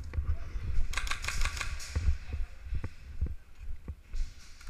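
Footsteps and gear bumps heard as dull thumps through a waterproof camera case, with a short burst of rapid clicks about a second in.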